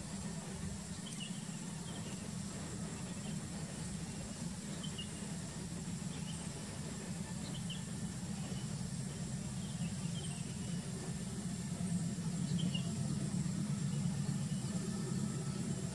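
A steady low rumble of a distant vehicle slowly grows louder. Over it, a small bird chirps in short calls about once a second, with a faint steady high hiss.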